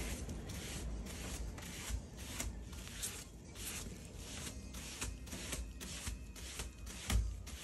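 Palm brush sweeping over damp backing paper on a board, in repeated swishing strokes about one or two a second, smoothing it flat over a glued print during wet mounting. A dull thump comes near the end.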